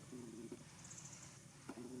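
A newborn monkey crying from hunger: two short pitched cries, about a second and a half apart.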